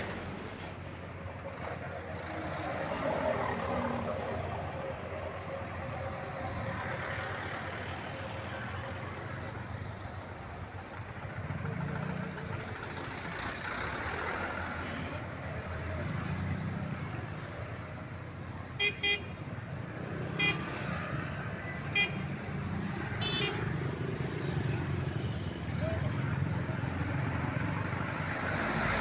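Road traffic passing steadily, swelling and fading as vehicles go by, with a few short horn toots about two-thirds of the way through.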